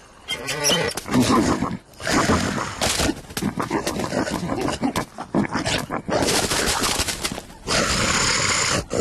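Cartoon animal sound effects and short cries, then near the end a loud, long cartoon lion roar.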